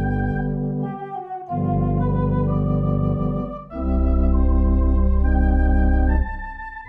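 Organ music: sustained chords over a deep bass note, the chord changing about every two seconds.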